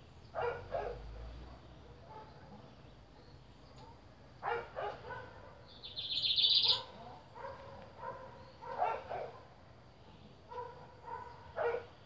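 Animal calls in four short bouts, with a brief higher-pitched chirp about six seconds in.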